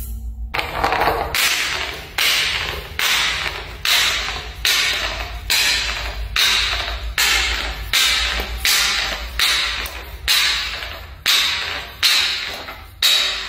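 A small glass juice bottle tumbling down marble stairs, striking each step with a sharp clink that rings briefly. There are about sixteen strikes at a steady pace, roughly one every three-quarters of a second, and the bottle does not break.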